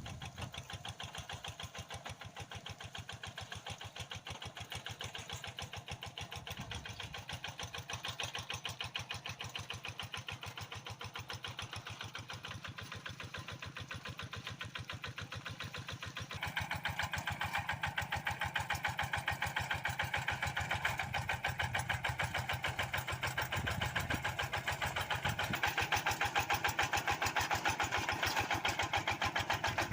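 Kubota RD85DI single-cylinder diesel on a Quick G1000 hand tractor, running with a fast, even beat. It steps up in loudness about halfway through.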